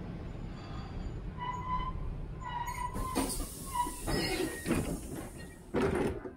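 Vintage Milan tram car, a Series 1500 'Ventotto', running on its rails with a low rumble, then short high metallic squeals from the running gear about a second and a half in. Several knocks and rattles follow, the loudest a sharp clatter near the end that stops abruptly.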